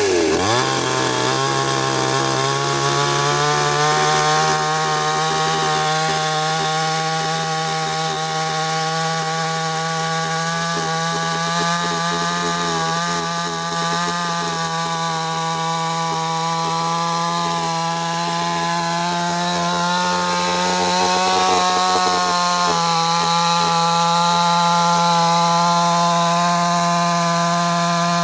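55 cc two-stroke petrol chainsaw running at high revs, its pitch stepping up about a second in and then holding nearly steady.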